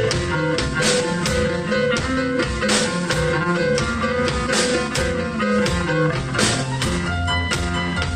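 Live rock band playing: a guitar line of held notes over drums and bass, with no singing.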